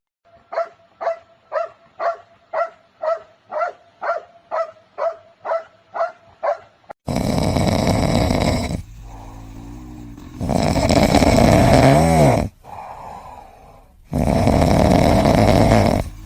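A dog barking in a steady run of about a dozen short, evenly pitched barks, roughly two a second. About seven seconds in, this gives way to louder, rougher noisy stretches.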